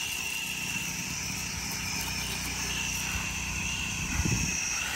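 Pressure washer spray gun firing a steady jet of rinse water with a continuous hiss, over the steady low drone of the pressure washer's engine.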